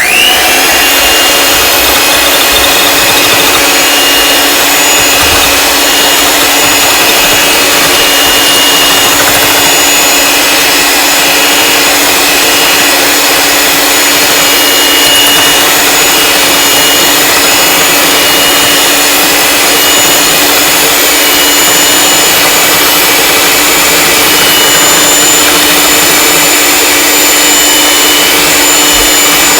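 Electric hand mixer switching on and running at a steady speed with a single beater, whipping egg whites toward a froth; a loud, even motor whine.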